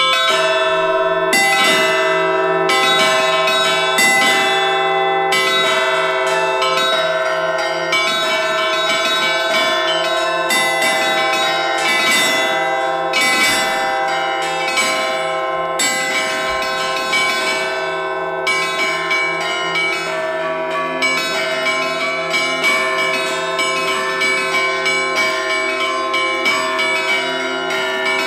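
Russian Orthodox church bells ringing a full peal: several bronze bells of different pitches struck over and over, the smaller bells in a quick, regular rhythm over the longer ring of the lower bells.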